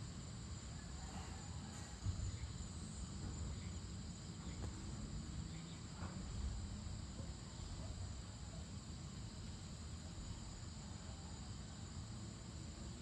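Evening chorus of crickets, a steady high trill, over a low background rumble. A brief bump about two seconds in.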